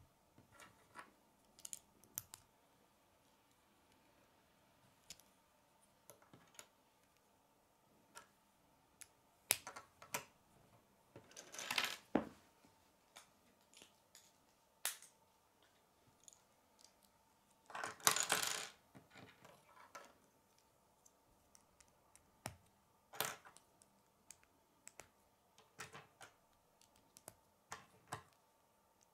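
K'nex plastic rods and connectors clicking as they are snapped together and set down on a wooden table: scattered sharp clicks, with two longer clattering rattles, one about halfway through and another some six seconds later.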